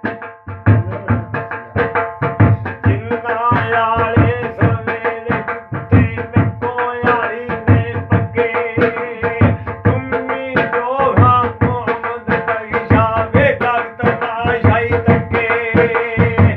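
Punjabi folk music: a barrel drum played by hand in a fast, steady rhythm, over a held drone note with a wavering melody line coming and going above it.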